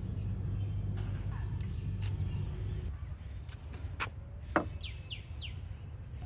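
Birds chirping, with three quick downward-sliding calls about five seconds in, over a low steady rumble. About four and a half seconds in comes a sharp knock as a ceramic gravy boat is set down on a wooden table.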